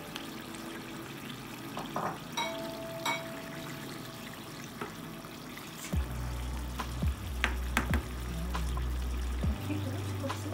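Wooden spoon stirring white kidney beans into tomato sauce in a pot, knocking against the pot's sides several times, starting about halfway through. Before that, only faint background music.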